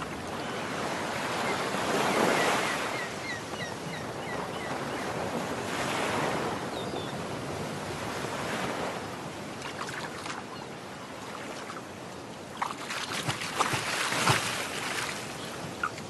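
Sea surf washing in and drawing back in several slow swells. A quick run of short high chirps comes about two seconds in, and a few short sharp clicks sound near the end.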